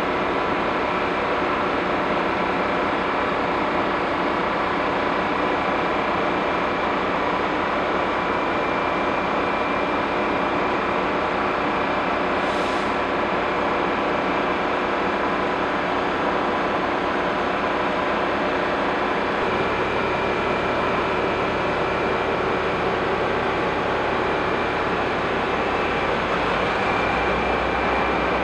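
Diesel-hauled express train idling at a station platform: a steady mechanical drone with a few held tones. A brief hiss comes about twelve seconds in, and a deeper low rumble joins about twenty seconds in.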